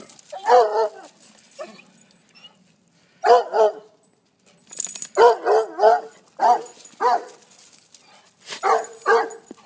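A dog barking in short, high barks: one under a second in, another after about three seconds, a quick run of three about five seconds in, single barks at six and a half and seven seconds, and two more near the end.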